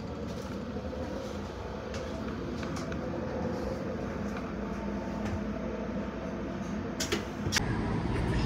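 Steady hum inside a stationary passenger train carriage, with two sharp knocks about half a second apart near the end.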